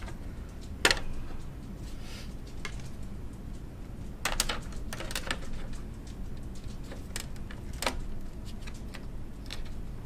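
Sharp clicks and clatter of a plastic screwdriver bit case and bit driver being handled and set down on the metal computer case: one loud click about a second in, a cluster of clicks around four to five seconds, another near eight seconds, over a steady low hum.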